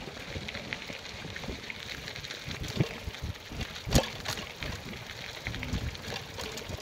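Bicycle rolling over a gravel road: tyres crunching on loose stones, with scattered clicks and rattles, and a sharper knock about four seconds in.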